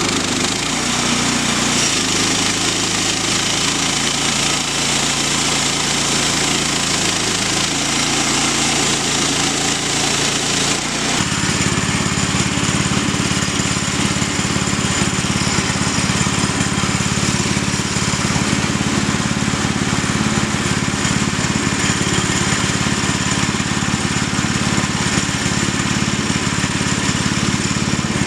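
Small gasoline engine running the sawmill while planks are milled from a log. Its pitch shifts up and down for the first ten seconds, then settles into a steadier, heavier drone about eleven seconds in.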